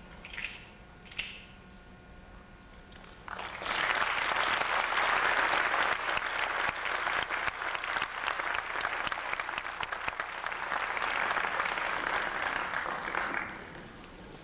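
Audience applause, a dense clapping that starts about three and a half seconds in after a few faint taps and fades out near the end.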